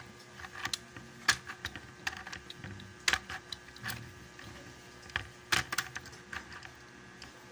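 Irregular plastic clicks and taps from the opened mini sewing machine's mechanism as it works, over a faint steady hum. A cracked plastic drive part lets the mechanism skip and jump, so only the needle goes down while the rotating part does not turn.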